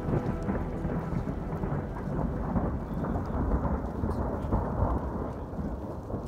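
Strong wind buffeting the microphone: a rough, low rumble that swells and dips in gusts.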